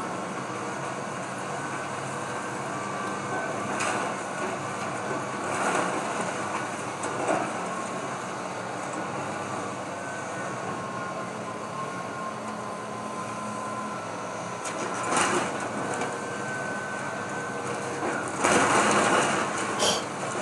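Excavator engine running steadily with a high steady tone over it while it demolishes a wood-frame house. Crashes of splintering wood and falling debris come at intervals, with the longest and loudest burst near the end.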